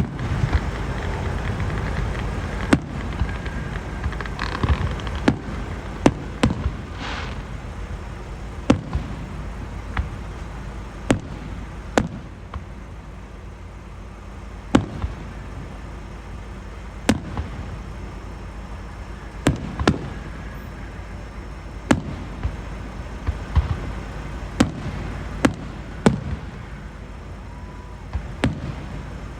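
Fireworks going off: single sharp bangs every second or two at irregular intervals, over a steady low rumble.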